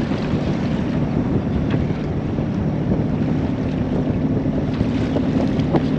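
A sailboat under way on its engine, running steadily, with wind noise on the microphone.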